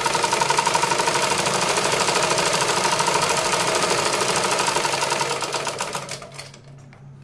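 Usha black sewing machine stitching at speed, a rapid even clatter of the needle mechanism running, that slows and stops about six seconds in.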